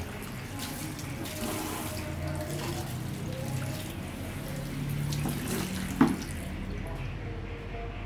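Water running at a salon shampoo basin while lathered hair is scrubbed by hand, a steady wet hiss. A sharp knock comes about six seconds in, and the higher hiss drops away soon after.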